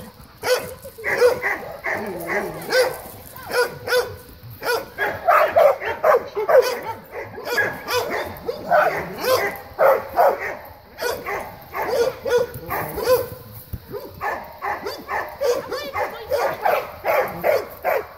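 A pack of dogs barking and yipping over one another without a break, the excited calls of many dogs greeting a person.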